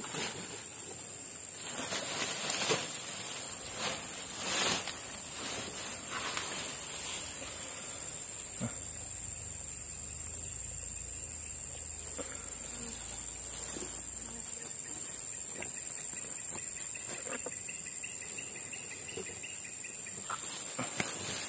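Insects chirring in a steady, high-pitched drone. Scattered rustles and knocks from hands working in dry grass and leaves are heard over it, mostly in the first several seconds.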